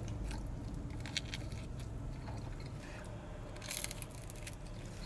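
A person biting into and chewing a slice of pizza close to the microphone: scattered mouth clicks and small crunches, with a short cluster of louder crunching near the end, over a low steady hum.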